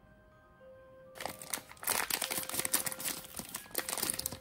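A foil blind-box bag and its wrapping crinkling and rustling as a toy figure is pulled out by hand, starting about a second in.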